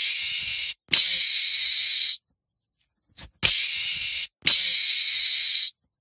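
Meerkat hissing: two pairs of loud, high hisses, each pair a short hiss then a longer one of over a second, starting and stopping abruptly. A faint click comes just before the second pair.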